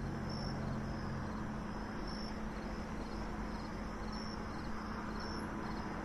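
Crickets chirping: short, high chirps repeating about once or twice a second over a steady low hum and hiss.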